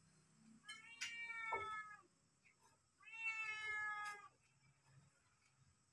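A cat meowing twice, each meow lasting about a second.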